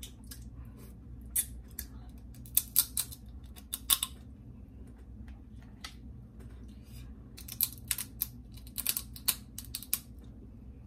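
Cooked blue crab's shell cracking and crunching as it is broken open and eaten, in irregular sharp clicks that come in clusters, over a faint low hum.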